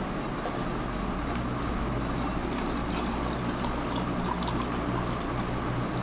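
Milk pouring from a carton into a plastic measuring jug, over a steady background hum.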